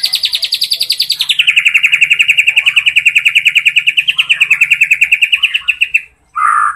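White-rumped shama (murai batu) singing one long, rapid trill of repeated notes, about fourteen a second, that drops in pitch after about a second and a half and breaks off near the end. A short, lower call follows right at the end.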